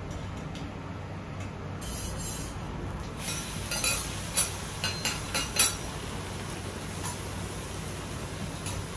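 Metal okonomiyaki spatulas scraping and clinking on a steel teppan griddle as an okonomiyaki is flipped: a cluster of sharp clinks from about three and a half to six seconds in, over a steady background hum.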